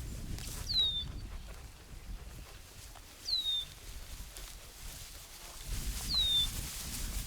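A bird repeating a short, downward-slurred whistle three times, about every two and a half seconds, over a low rumble.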